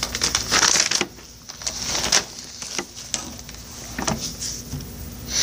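Rustling and scattered light clicks and knocks from an arm and sleeve moving against the recording device, close to the microphone.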